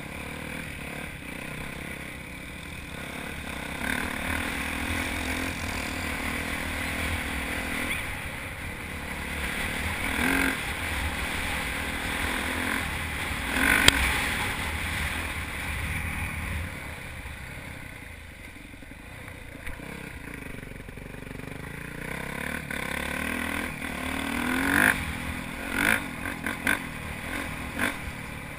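Motocross bike engine running and revving as the bike is ridden along a dirt trail, its pitch rising and falling with the throttle. A few sharp knocks stand out, one about halfway through and a cluster near the end.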